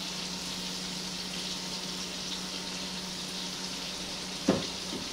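Onions sautéing in a pan, a steady sizzle over a low steady hum, with a single short knock about four and a half seconds in.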